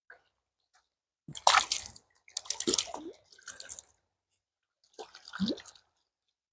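Hands splashing and dripping in shallow river water while a small brown trout is unhooked and released: several short splashes with quiet gaps between.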